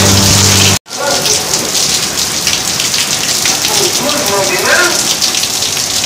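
Heavy rain pouring down in a steady hiss. Under a second in, a steady low humming tone cuts off abruptly and the rain takes over.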